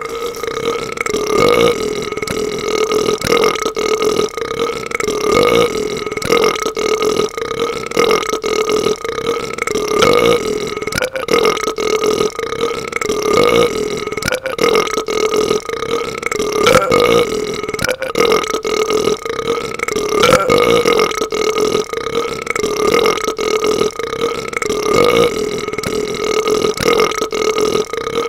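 A man's long, unbroken burp, starting abruptly and held at one steady pitch throughout, swelling a little in loudness every second or two.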